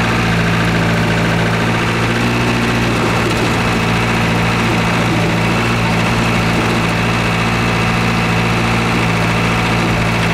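4x4 truck's engine running steadily as it drives along, heard from inside the vehicle.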